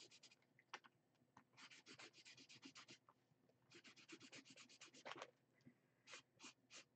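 Faint, quick strokes of a washable felt-tip marker, its tips soggy with age, scratching across a paper coffee filter. The strokes come in runs of about eight a second with short pauses, then three slower single strokes near the end.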